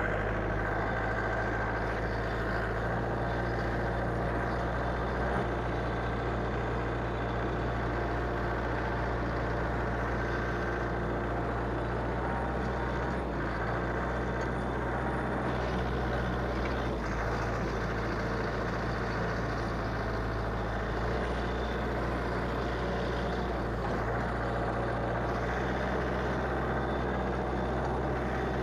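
Frontier OS27 portable sawmill's engine running steadily at an even speed, with a low hum and no clear change in load.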